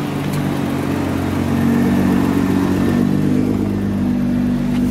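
Nissan GTR's twin-turbo V6 idling steadily through a titanium Armytrix exhaust, getting a little louder about one and a half seconds in.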